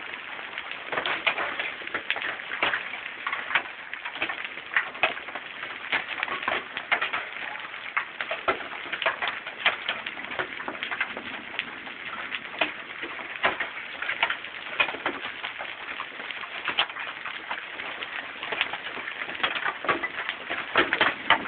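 Hailstones striking the lawn, pavement and nearby surfaces in an irregular clatter of sharp ticks, over a steady hiss of rain.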